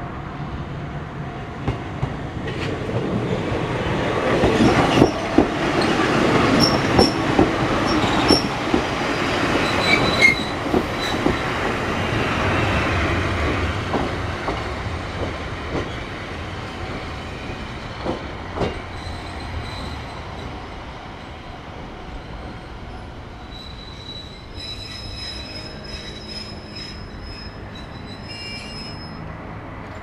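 Wakayama Electric Railway 'Ichigo Densha' electric train passing close by. Its wheels click over rail joints and give brief high squeals, and the sound swells and then fades as it moves off. A few high squeals near the end as it slows at the platform.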